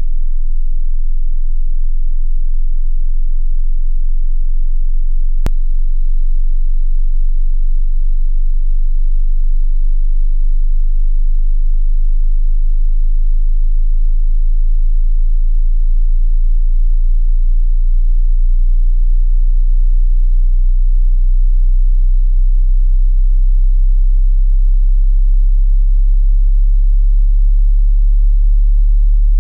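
A very low, steady pure test tone from an online hearing test, near the bottom of the range of hearing, with one faint click about five seconds in.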